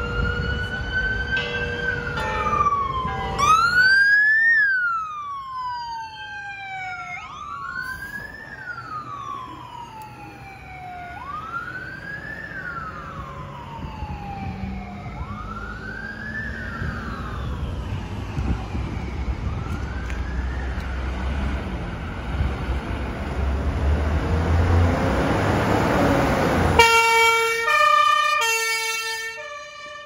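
Fire engine sirens. A wailing siren sweeps quickly up and slowly down about every two seconds and fades away. A heavy engine rumbles past, loudest a few seconds before the end. Near the end a two-tone hi-lo siren starts up, alternating between two steady pitches.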